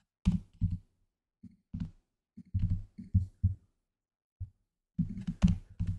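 Computer keyboard keystrokes and mouse clicks from working in Blender: a dozen or so short, irregular taps with a dull low thump to each, a pause of about a second in the middle, and a quick run of taps near the end.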